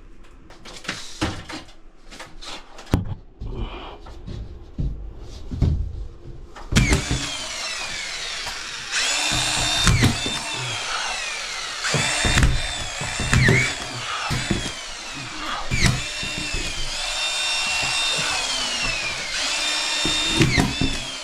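Power drill or screw gun run in repeated bursts, its whine speeding up and then falling away as it slows between runs, typical of driving screws into plasterboard. Scattered knocks and handling in the first few seconds before the drill starts.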